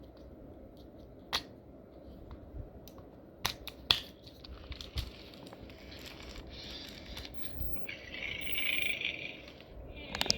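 Clicks, knocks and scratchy scraping of hard plastic as batteries are worked into a 2012 Furby's battery compartment, the loudest rubbing near the end.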